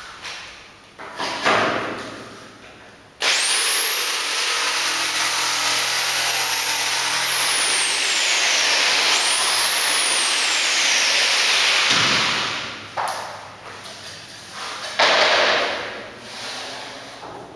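Handheld electric saw cutting a laminate floorboard: the motor starts suddenly and runs with a steady high whine for about nine seconds, its pitch sagging twice as the blade bites into the board, then winds down. A few knocks of boards being handled come before and after the cut, the loudest near the end.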